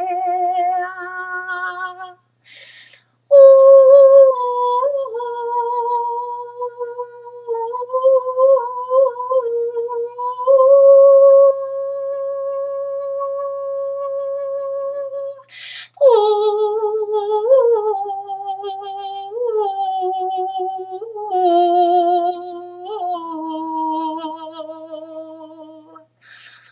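A woman toning: long wordless sung notes, each held for several seconds with small wavering turns in pitch. She takes audible breaths about two and a half seconds in and again a little past halfway.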